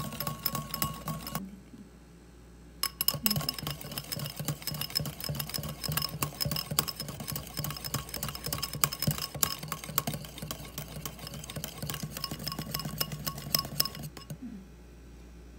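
Wire whisk beating a thick coffee, sugar and water mixture in a ceramic bowl by hand, a fast run of clicks and clinks as the wires strike the bowl. It breaks off briefly about a second and a half in, resumes about three seconds in, and stops shortly before the end.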